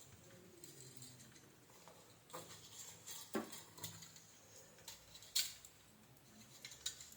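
Faint scattered clicks and taps, a few of them sharper, of the opened hair dryer's plastic housing and heater parts being handled.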